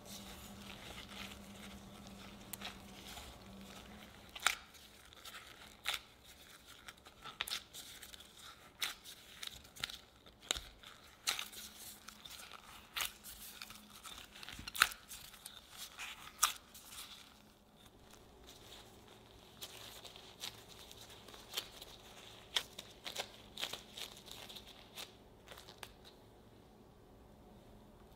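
Gloved hands kneading a sticky chocolate truffle mixture in a glass bowl: irregular sticky squelches, plastic-glove crinkles and sharp clicks, thinning out near the end.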